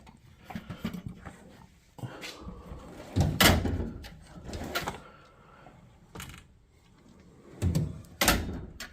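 Metal tool-chest drawers being slid open and shut, with several separate clunks and knocks.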